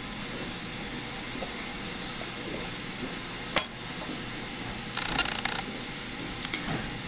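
Steady background hiss, with one sharp click about three and a half seconds in and a brief scratchy rustle about five seconds in: metal dental hand instruments packing retraction cord against a plastic typodont tooth.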